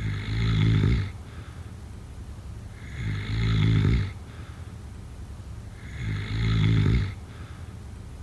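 A sleeper snoring: three loud snores, each about a second long, coming about every three seconds.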